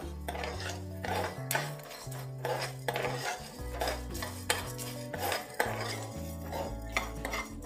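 Steel spoon stirring and scraping whole spices as they dry-roast in a nonstick kadai: a dry rattle of coriander, cumin and fennel seeds with repeated light clinks of the spoon against the pan. Background music with low held bass notes plays underneath.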